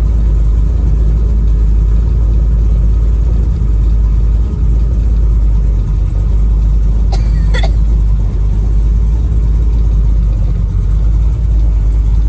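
Chevrolet Nova's engine running steadily at low speed in slow traffic, heard from inside the car as a low, even rumble. Two short clicks come a little past halfway.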